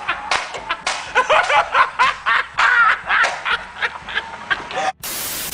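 A man laughing hard in quick repeated bursts, about four a second. Near the end the laughter cuts off into a loud, flat hiss of static.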